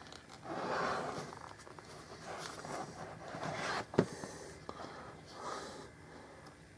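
Paperboard retail box handled and worked open by hand: scraping and rustling of the cardboard, with one sharp click or snap about four seconds in, the loudest sound.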